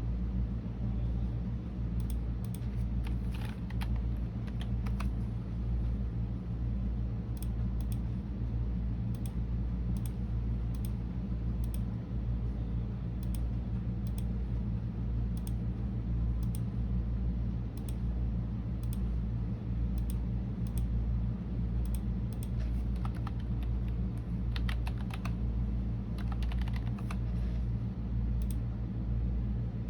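Typing on a computer keyboard: irregular key clicks with a few quick runs of keystrokes, over a steady low hum.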